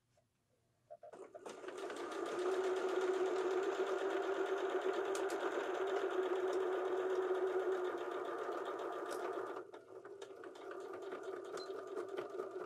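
Electric sewing machine stitching invisible-zipper tape onto upholstery-weight fabric. It starts about a second in, speeds up to a steady run, then eases off briefly near the end and carries on a little quieter.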